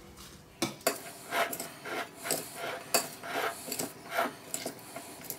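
A wooden-handled spoon stirring cold rice salad in a ceramic bowl: a run of short scrapes and light taps against the bowl, about two a second, starting about half a second in.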